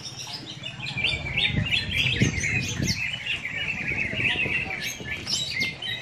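Several caged green leafbirds (cucak hijau) singing at once: a dense, unbroken run of overlapping chirps and whistles.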